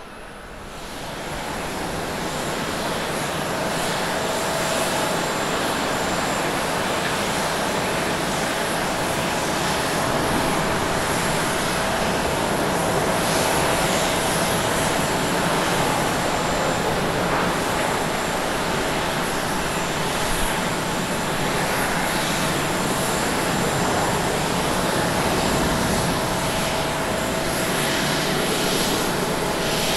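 Jet engines of a Thai Airways Airbus A330 at takeoff thrust: a steady rush of engine noise with a faint steady whine. It swells over the first two seconds and then holds level through the takeoff roll and lift-off.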